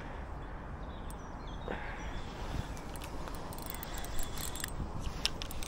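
Wind rumbling on the microphone, with a few sharp clicks and ticks about four to five seconds in.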